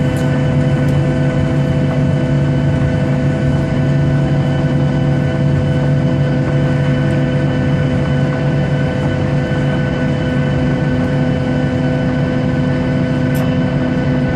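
An airliner's jet engines at taxi power, heard from inside the cabin as the plane taxis: a steady, even drone with several held tones over a low hum.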